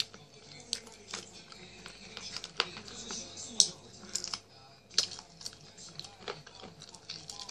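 Close-up eating sounds of grilled chicken being picked off the bone and chewed: irregular wet mouth clicks, smacks and crackles, with a few louder sharp clicks, the loudest about halfway through.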